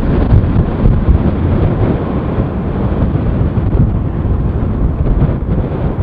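Wind buffeting the microphone: a loud, gusting low rumble.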